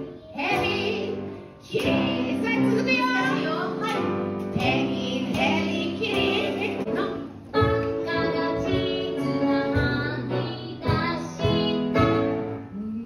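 A children's song performed live: a woman singing into a microphone with piano accompaniment, with children's voices singing along.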